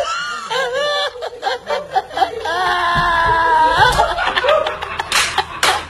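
Boys laughing and snickering, one voice drawn out in a long held note midway, with two sharp smacks near the end.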